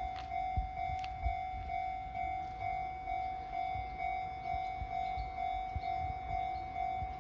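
Railway level-crossing warning bell ringing, one steady tone repeating at about two beats a second, with irregular low thumps underneath.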